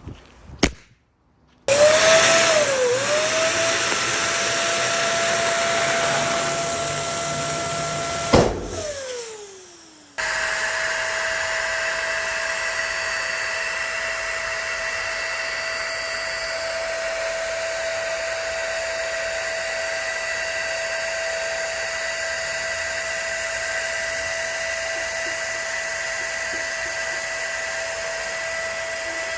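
Small electric air pump running with a steady hum and hiss of air. It clicks off about eight seconds in and its pitch falls as it winds down, then it starts again abruptly about two seconds later and runs steadily. A single sharp pop comes just under a second in.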